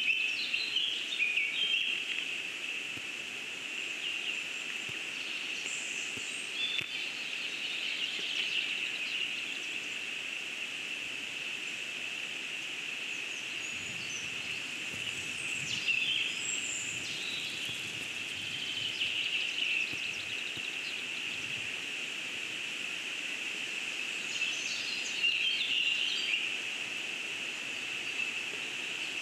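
Forest ambience: small birds chirping and calling now and then over a steady high-pitched hiss that runs throughout.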